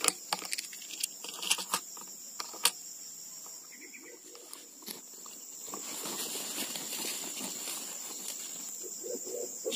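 Insects droning in the forest, a steady high-pitched tone, with scattered small clicks and taps in the first few seconds.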